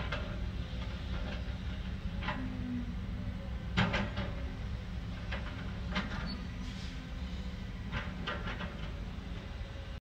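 Crawler bulldozer at work: a steady low diesel engine rumble with occasional sharp metallic clanks and squeaks from the tracks and blade on rock. The loudest clank comes about four seconds in.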